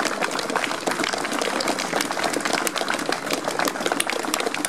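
A small crowd applauding: a dense, irregular patter of hand claps.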